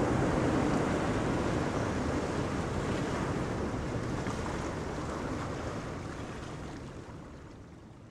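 Wind rushing over the microphone with the wash of sea waves, a steady noise that fades away near the end.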